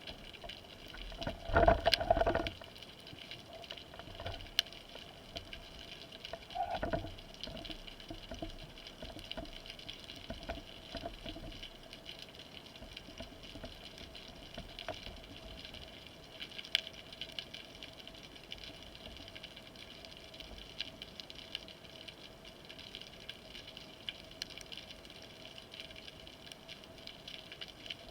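Underwater sound as heard by a spearfisher's camera: a steady crackling hiss of the water with scattered clicks. A louder bubbling burst comes about two seconds in and a smaller one near seven seconds.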